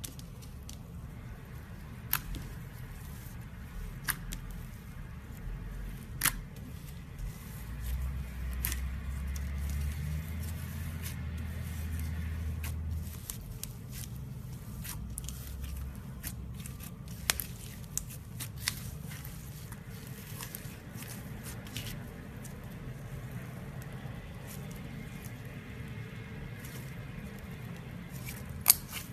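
Clear glitter-covered slime being pressed, stretched and folded by hand: a soft sticky squishing, with a few sharp pops or clicks spread through.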